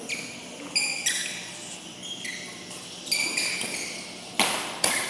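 Rubber-soled court shoes squeaking on a badminton court floor in many short, high-pitched chirps as players move during a rally. Two sharp racket hits on the shuttlecock come close together near the end.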